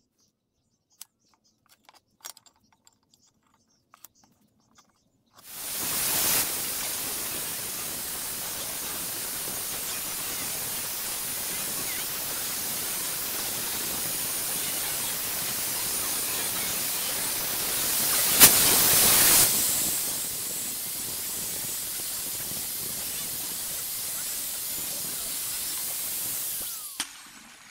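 Angle grinder running with its disc against a steel chisel blade held in a vise: a steady hissing grinding noise that starts about five seconds in, surges louder briefly about two-thirds of the way through, and stops near the end. Before it, a few light clicks of the chisel being handled in the vise.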